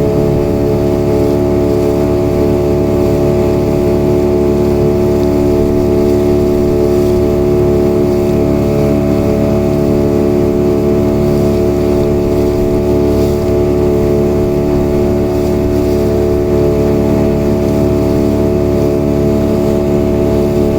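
Motorboat's outboard motor running steadily at an even, unchanging pitch.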